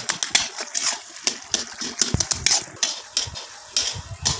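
A long metal spatula scraping and clinking against a karahi as it stirs thick semolina-and-jaggery halwa. The clinks and scrapes come irregularly, several a second.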